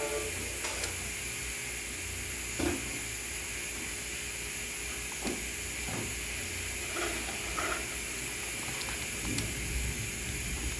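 Steady hiss with a faint low hum, broken by a few faint brief sounds. The film's soundtrack is nearly silent.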